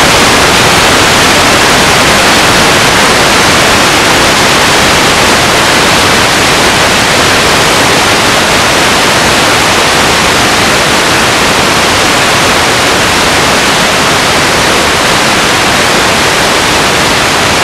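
Loud, steady static hiss from analog videotape playing past the end of its recording, even across all pitches and unchanging.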